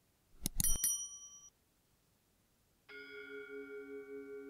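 A quick run of metallic clinks, one leaving a bright ring for about a second, as stainless steel bowls are handled. About three seconds in, soft background music starts with a steady, pulsing keyboard tone.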